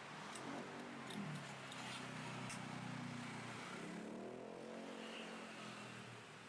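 A motor vehicle engine running nearby, its pitch dipping, then holding steady, then rising about four seconds in as it revs. Several light clicks sound over it.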